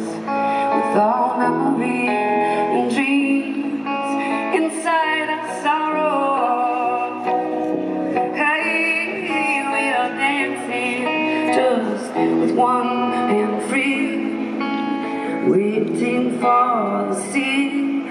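Live band music with guitar, and a woman's voice singing held, gliding notes into a microphone held close to her mouth.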